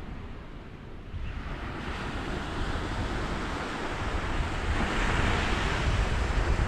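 Ocean surf washing onto the shore, building to a louder wave about five seconds in, with wind buffeting the microphone.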